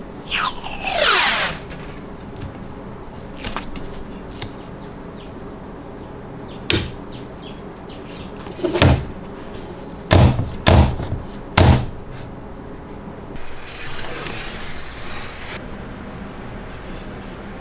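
Handling noises: a quick falling scrape, scattered clicks, then a cluster of about four heavy knocks, followed by a steady hiss lasting about two seconds.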